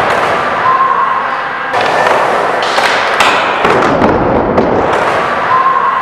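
Skater slamming on a wooden vert ramp: body and loose skateboard sliding and knocking on the plywood, with steady rolling noise and several sharp thuds and clacks.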